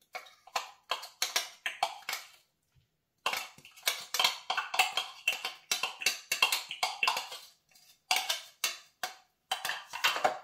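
A metal spoon scraping and tapping inside the plastic bowl of a small food chopper, digging out chopped green pepper and onion in quick, repeated strokes, with short pauses between bursts.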